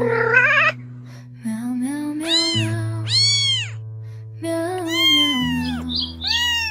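A cat meowing four times, each meow rising and then falling in pitch, over gentle background music with long held notes.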